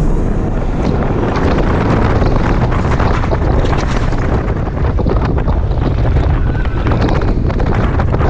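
Loud rushing wind buffeting the microphone of a rider on the Booster Bike motorbike roller coaster as the train runs at speed through its turns, with a low rumble underneath.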